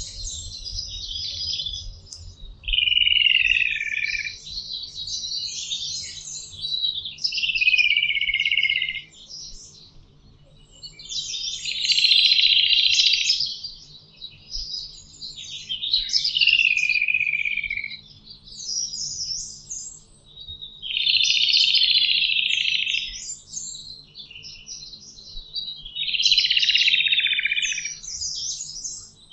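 A chorus of several songbirds singing, with phrases of a second or two that repeat and overlap every few seconds; some of the phrases slide down in pitch.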